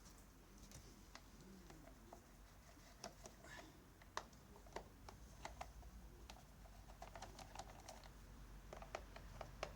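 Faint scattered light clicks and taps, growing more frequent in the second half, from handling a Husqvarna 137 chainsaw as its plastic top cover is taken off.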